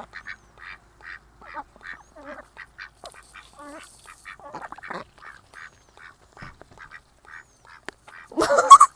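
Ducks quacking in short, quick calls, about three a second, with a louder, closer burst of quacking and noise near the end.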